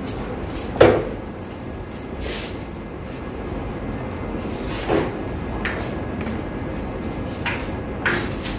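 Clunks and knocks of equipment being handled in an operating theatre: a few sharp knocks, the loudest about a second in and others around five and eight seconds, over steady low background noise.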